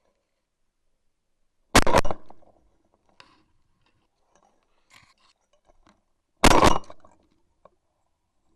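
Two shotgun shots about five seconds apart, each a sharp blast with a short rolling tail, with faint clicks and knocks between them.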